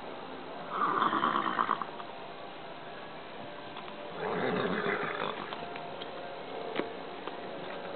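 Horse nickering twice: a short fluttering call about a second in and a lower, fuller one about four seconds in. A single faint knock near the end.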